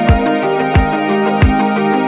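Background music with a steady beat: a low drum hit about every two-thirds of a second under a melody.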